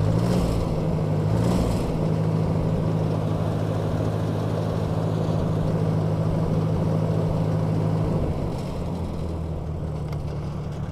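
Ford 641 Workmaster tractor's four-cylinder gasoline engine, its Marvel Schebler carburetor freshly set to starting settings of one turn out on the idle screw and two turns out on the main jet. It speeds up at the start, runs steadily at the faster speed, then slows back and quietens about eight seconds in.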